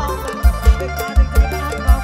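Loud live band music from a Thai rot hae sound-truck band: a heavy kick-drum beat about twice a second under an electronic keyboard melody, with a woman singing into a handheld microphone.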